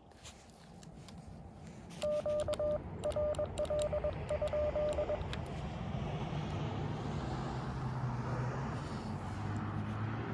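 Morse code sent on a paddle key, heard as the Xiegu X6100 transceiver's sidetone: a single-pitched beep keyed in dots and dashes for about three seconds, with sharp clicks of the paddle. After that comes a steady hiss of band noise from the radio's receiver.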